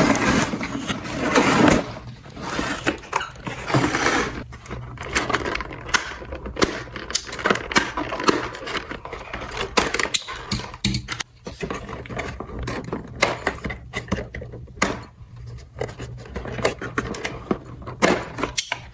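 Small plastic toy pieces being handled: a run of irregular clicks, taps and light scrapes, with rubbing and sliding in the first couple of seconds.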